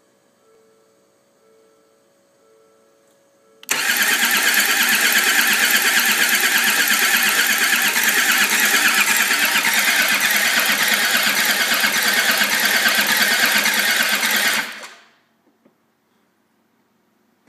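Land Rover Td5 five-cylinder turbodiesel being cranked on the starter motor for about eleven seconds without the engine firing, then the cranking stops: a no-start.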